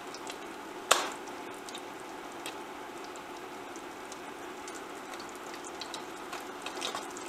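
Spam slices frying in oil in a stainless steel pan, a steady sizzle with small crackles and pops. About a second in there is one sharp click that rings briefly, louder than the sizzle.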